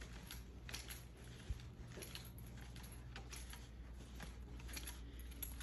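Faint, irregular clicks and rustles from a person walking with a hand-held camera, over a low steady hum.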